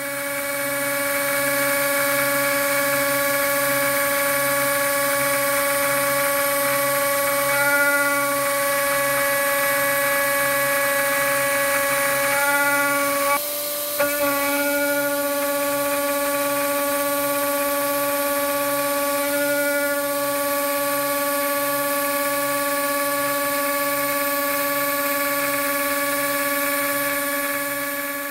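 CNC milling machine spindle running with an end mill cutting an aluminium plate: a steady whine over cutting noise. The pitch shifts slightly a few times, and the level drops briefly about halfway through.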